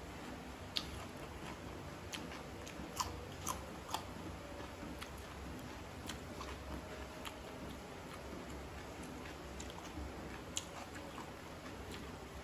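A person chewing food close to the microphone, with scattered wet mouth clicks and smacks; the sharpest come about a second in, three times between three and four seconds in, and once more near the end.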